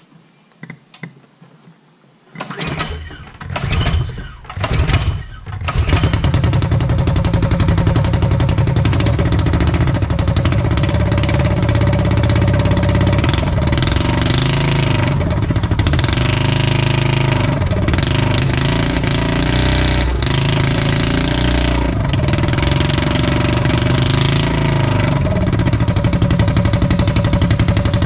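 Predator 212 Hemi single-cylinder engine, built with a Stage 2 kit and a hotter cam, being started: three short firing bursts, then it catches about six seconds in. It then runs loud and steady through a straight exhaust pipe, its speed wavering up and down now and then.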